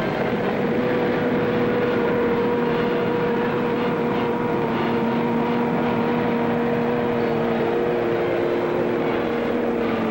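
Military half-track's engine running steadily at one even pitch over a noisy rumble.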